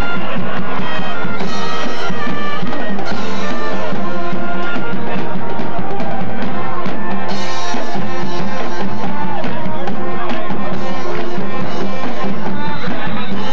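Music with a drum beat.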